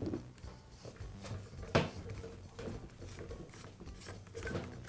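Light clicks and scrapes of metal as the barrel assembly of a Milwaukee cordless grease gun is worked loose, with the plunger rod drawn out by its handle. There is one sharper click a little under two seconds in.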